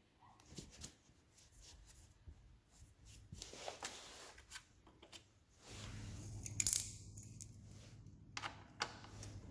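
Light scattered metallic clicks and clinks, with one sharp ringing metal clink a little past the middle. A low steady hum starts just before that clink and keeps going.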